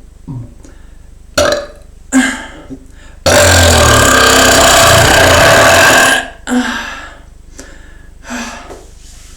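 A person belching deliberately after swallowing air: two short gulps, then one long, loud, deep belch lasting nearly three seconds, followed by a couple of smaller sounds.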